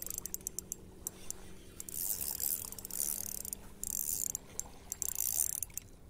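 Spinning reel ratcheting and clicking in bursts while a hooked bass fights on the line.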